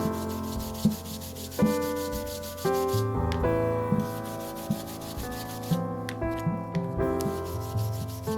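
Sandpaper rubbing on wood in repeated strokes, pausing briefly twice, under background music of sustained keyboard notes.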